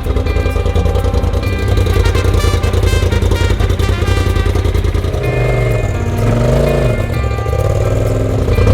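Polaris RZR UTV engine running under background music, its pitch rising and falling briefly about two-thirds of the way through.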